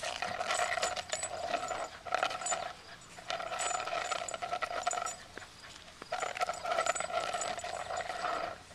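Scottish terrier growling in play while rolling and wrestling with a plastic flying disc on concrete. The growls come in rough bursts of about one to two seconds with short pauses between, over small clicks and scrapes.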